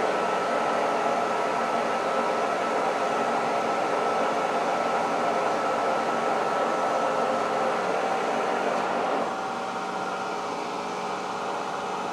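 Kearney & Trecker horizontal milling machine running steadily, its cutter cutting the counterbore. About nine seconds in the cutting sound drops away and gets quieter, while the machine keeps running.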